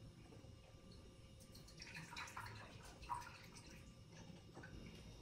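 Faint dripping of lemon juice as a lemon is squeezed by hand through a plastic strainer into a glass, with a few small soft ticks.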